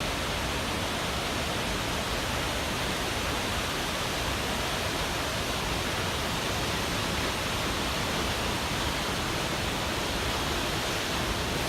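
Rushing whitewater of the McKenzie River, a steady, unbroken roar.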